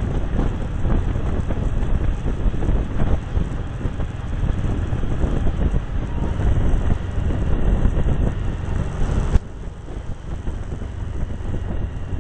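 Wind buffeting the microphone of a moving Cagiva Navigator motorcycle, over the bike's running and road noise. The rushing drops suddenly about nine seconds in.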